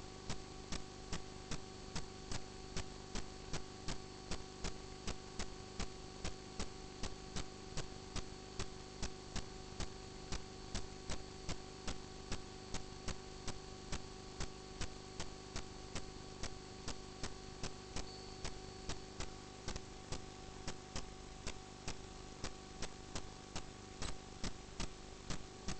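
Steady electrical hum with a few fixed tones, overlaid by regular sharp ticks about two and a half times a second.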